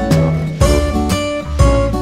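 Background music: plucked and strummed guitar with a steady beat and a deep bass.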